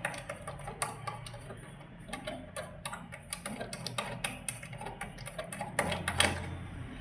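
Rapid, irregular clicks and light knocks of hard parts being handled and fitted on a monitor arm mount as a locking piece is put in place.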